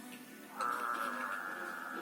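Audio playing from a phone speaker: quiet background music, then an animal call played from the phone comes in suddenly about half a second in and holds steady, loud, to the end.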